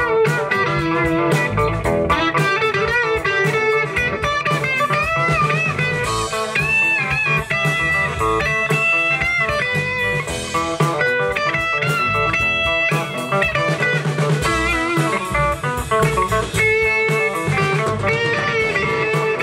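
Live rock band playing an instrumental passage: electric guitars over bass guitar and a Pearl drum kit, with a lead guitar line of bending, sliding notes through the middle.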